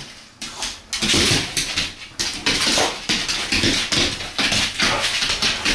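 A boxer dog scrambling and pouncing on a hard kitchen floor after a laser dot: a fast clatter of claws skittering and paws thumping, starting about a second in.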